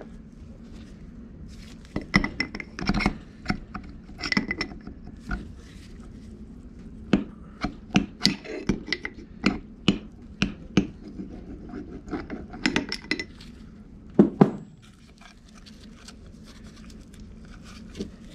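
Metal valve parts and seats clinking and scraping against an FMC John Bean R10 pump head as they are worked loose and pulled out by hand. It is a run of light metallic clicks and clinks, some ringing briefly, with two louder knocks about fourteen seconds in.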